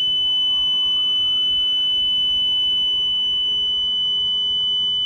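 Home security alarm panel sounding one steady, high-pitched continuous tone during a medical-alarm test, with no spoken voice announcement. The panel's voice system is failing to talk, which the owner takes for a glitch.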